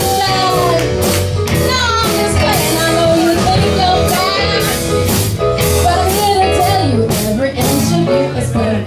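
Live classic rock band playing: drum kit keeping a steady beat, electric guitars and bass under a sung lead vocal.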